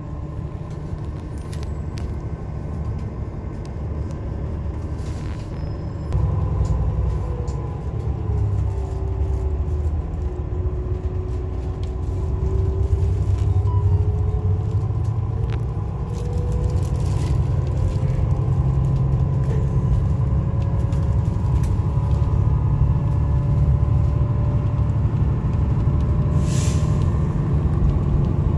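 Road vehicle driving along, with a steady low rumble of engine and road noise that gets louder about six seconds in. Over it runs a whine that dips in pitch and then climbs slowly, and there is a short hiss near the end.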